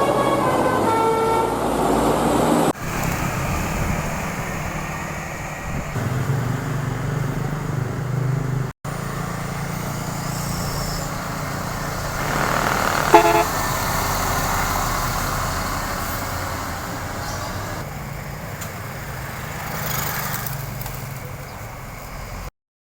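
A tour bus's telolet horn, a multi-tone air horn, plays a quick melody in stepped notes for the first few seconds. After that come bus engines and passing traffic, with one short horn blast a little past the middle.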